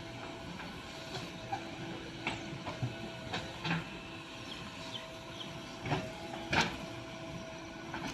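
Diesel engine of earth-moving machinery running steadily, with irregular sharp knocks and clatters of working at soil loading, the loudest about six and a half seconds in.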